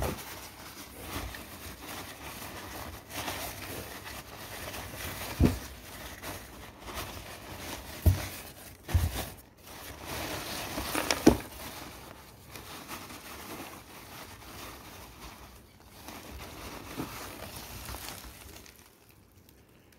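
White wrapping paper rustling and crinkling as hands unwrap a potted succulent inside a cardboard box, with a few dull knocks against the box along the way.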